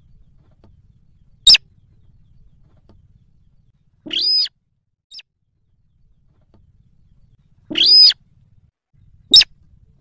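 Slaty-breasted rail calling. A sharp short call comes about a second and a half in, two longer calls of about half a second each around four and eight seconds in, and another sharp short call near the end.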